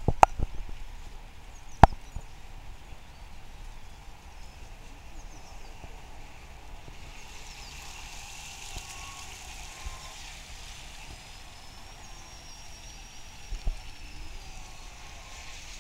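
Outdoor ambience at a pond: a steady low background hiss with faint high chirps and whistles, and a few sharp clicks in the first two seconds.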